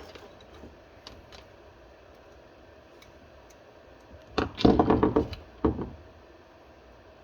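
Handling noise of tools and parts on a work surface: a few light clicks early, then a short burst of clattering knocks about four and a half seconds in, over a faint steady hum.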